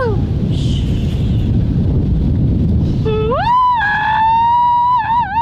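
Human imitation Bigfoot calls, shouted through cupped hands: one long howl falls away in pitch at the very start, then after a few seconds of wind rumble on the microphone a second howl rises about three seconds in and is held with a wavering pitch.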